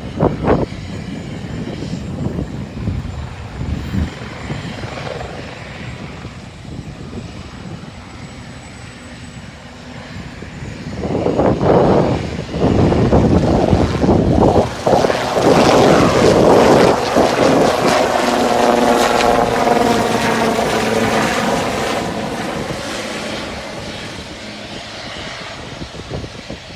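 Aircraft taking off at an airport: engine and propeller noise grows loud about eleven seconds in, stays loud with a sweeping, shifting tone as it passes, then fades away. A gusty low rumble runs underneath before it.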